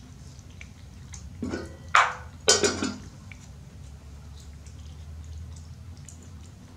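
A baby monkey chewing jackfruit, with small wet clicks and smacks, over a steady low hum. About one and a half to three seconds in come a few louder short rustling or scraping noises.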